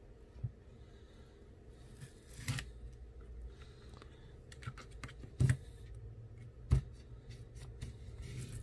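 Thin metal blade of a prying tool scraping and clicking along the edge of an iPhone 8 as the screen is pried up from the frame, with a few sharper clicks, the loudest past the middle.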